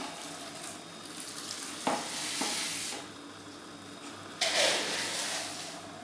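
Crushed malt grain poured from a plastic jug into the hot strike water of a Grainfather all-in-one brewing system during mash-in: two rushing pours, one about two seconds in lasting a second, another about four and a half seconds in lasting about a second and a half.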